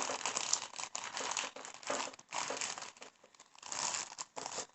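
Packet of roasted edible clay chunks crinkling as it is handled, in irregular rustling bursts with short pauses between them.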